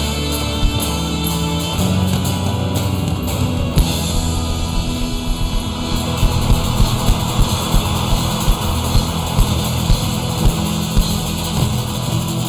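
Background music with drums and a steady beat that becomes more pronounced about halfway through.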